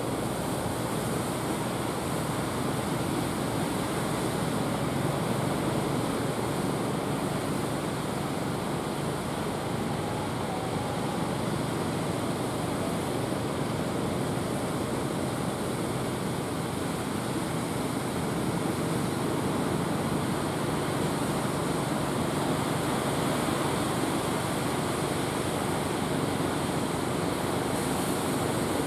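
Ocean surf breaking and washing up the beach in a steady rush.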